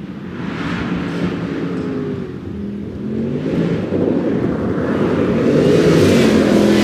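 Land Rover Defender V8's supercharged 5.0-litre V8 engine pulling hard off-road, revs rising and falling a few times and the sound growing louder toward the end, with tyres churning through mud.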